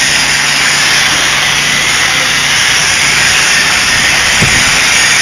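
Homemade concrete spin screed running steadily: a 1500-watt electric drill turning a 4-inch stainless pipe through an angle-grinder gear head, heard as a loud, even motor noise. A short low knock about four seconds in.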